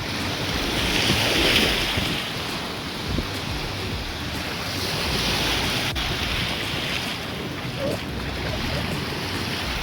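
Ocean surf washing onto the beach, swelling louder about a second in and again around five seconds, with wind rumbling on the microphone.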